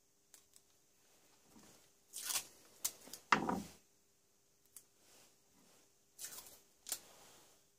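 Masking tape being pulled off the roll and torn, in several short bursts, the longest about two and a half seconds in and another near three and a half seconds, with a few small clicks of handling.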